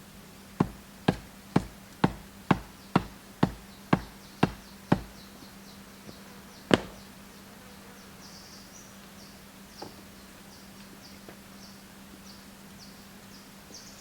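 A run of ten sharp strikes, about two a second, like a hand tool striking something solid, then a pause and one louder single strike. After that, faint high chirping, typical of rainforest insects, with a steady low hum underneath.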